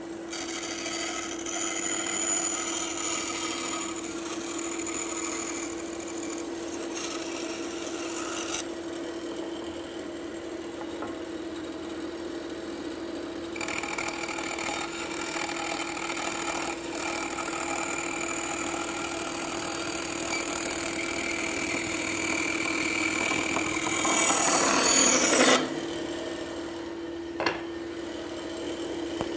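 Bandsaw with a 1/4-inch blade cutting a board along a curved line after relief cuts: a steady motor hum with two stretches of blade-through-wood hiss and a quieter pause between them. The second stretch grows louder and stops suddenly near the end, leaving the saw running free, and a single short knock follows.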